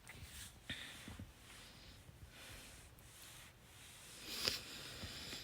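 Faint human stomach growling and gurgling: soft, irregular digestive noises, with a louder one about four and a half seconds in.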